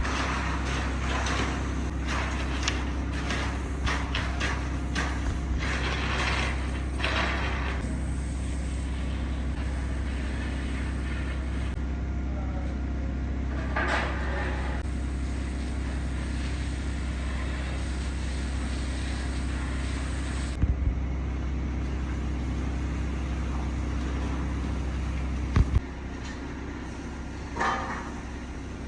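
Concrete truck's diesel engine running steadily with a low drone, with rough scraping sounds over it in the first several seconds. A couple of short knocks come near the end, after which the engine is somewhat quieter.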